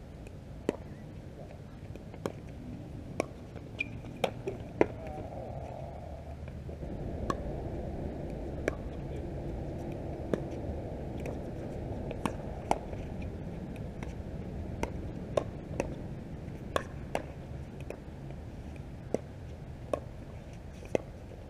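Pickleball rally: sharp, irregular pops of paddles striking the hollow plastic ball and the ball bouncing on the hard court, about one to two a second, over a steady low rumble.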